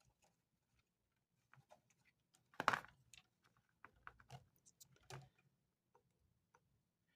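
Scattered small clicks and light knocks of handling as multimeter test leads are put on an RV furnace propane valve's solenoid terminals. The loudest knock comes a little before three seconds in, and a few more follow over the next two or three seconds.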